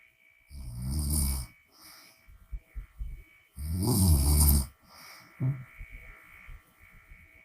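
A woman snoring with her mouth open: two loud, rattling snores about three seconds apart, each followed by a softer breath out.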